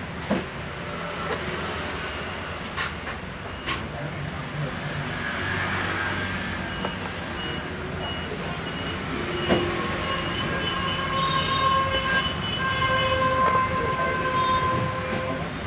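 A few sharp clicks of a steel screwdriver on the screws and plastic base of an Asus A540 laptop as the bottom-case screws are driven back in. Underneath is a steady background rumble, and from about a third of the way in a steady pitched tone comes and goes.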